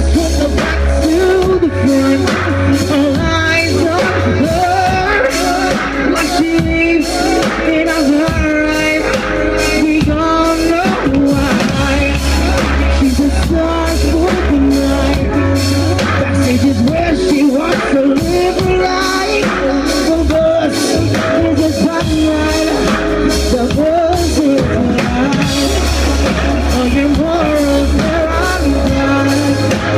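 A live band performing a song: a male lead vocal sings over a steady drum beat and heavy bass.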